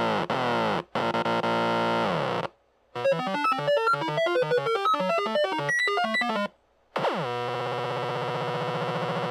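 Arduino-controlled pair of 555 timer oscillators making square-wave sound effects. First come repeated falling pitch sweeps and a buzzing tone, then a short pause and about three and a half seconds of rapid beeps jumping randomly in pitch. After a second pause comes a quick downward sweep into a steady low buzz.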